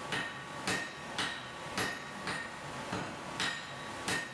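Blacksmith's hammer striking metal on an anvil in a steady rhythm, about two blows a second, each with a short metallic ring.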